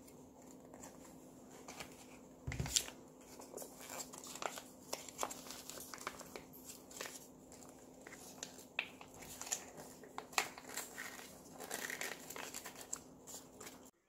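Plastic sauce pouches crinkling and rustling as they are torn open and squeezed out over the trays, in many short bursts, with one louder dull thump about two and a half seconds in. A faint steady hum runs underneath.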